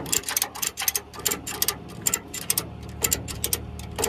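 Strap ratchet on a tow truck's wheel tie-down clicking as the strap is pulled tight: quick runs of sharp clicks, several a second, thinning out toward the end.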